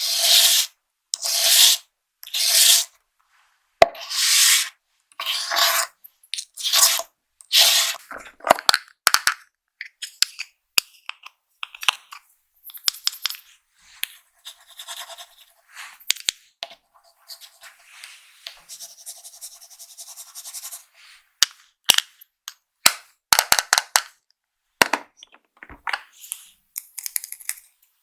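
Hands working makeup-box packaging: a run of short rustling, rubbing swishes about once a second, then a stretch of sharp clicks and taps with some scraping.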